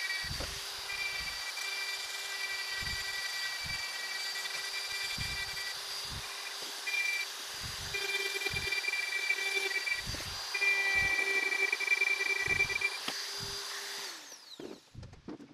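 Hand-held rotary tool spinning a carbide burr against olive wood, a steady high whine with short dips as the burr bites. About a second before the end the tool is switched off and its whine falls away as it spins down.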